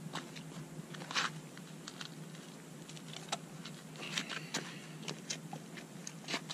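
Scattered light scuffs, clicks and rustles of a man handling a large fish with a cloth and stepping in flip-flops on stone, over a faint steady low hum.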